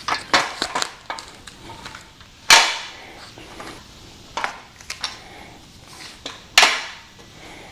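Steel legs of a folding miter saw stand dropping and clanking into place: two loud metal clanks with a short ring, a few seconds apart, among lighter knocks and rattles.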